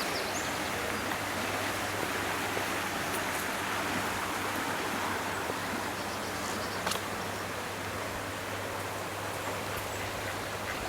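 Fast-flowing river water rushing steadily, with a few faint ticks.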